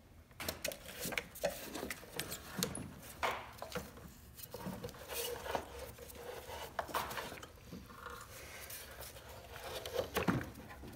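Hands handling plastic parts under a car's hood: irregular clicks, knocks and rubbing as the coolant overflow hose and level-sensor connector are unclipped and the plastic coolant expansion tank is moved aside.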